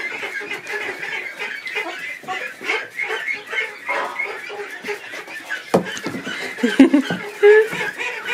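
Ducks peeping continuously in a rapid chatter of high, short calls. A few louder, lower sounds break in near the end.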